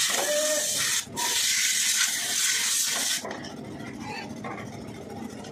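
Compressed-air solvent spray gun hissing as it blasts cleaning fluid onto an engine part over a metal basin: one short burst, a brief break, then a longer burst that stops about three seconds in.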